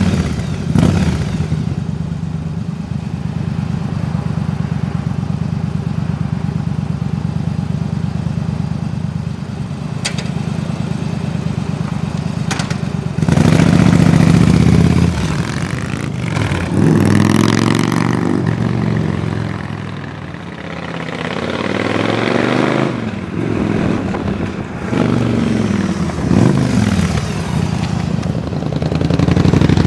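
Yamaha Drag Star 1100's air-cooled V-twin idling steadily, then revved several times from a little before halfway, each rev rising and falling back toward idle.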